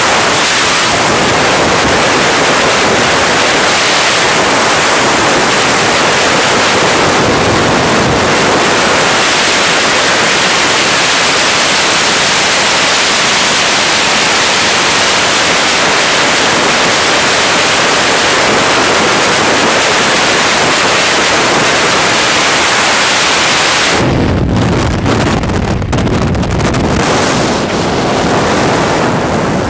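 Loud, steady rush of freefall wind on a skydiving camera's microphone. About 24 seconds in, the rush breaks up into an uneven, low flapping and buffeting as the parachute opens and the wind eases.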